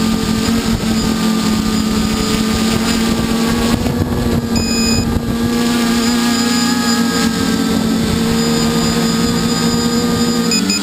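Multicopter's electric motors and propellers running steadily, heard from the GoPro on the craft, a loud even hum with wind rushing over the microphone.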